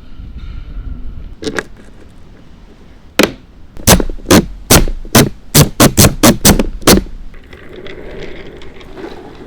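A single sharp knock, then a quick run of about eleven loud, sharp knocks over some four seconds, coming closer together in the middle of the run.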